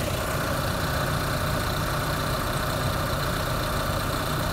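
Opel Z22XE 2.2-litre Ecotec inline-four engine idling steadily.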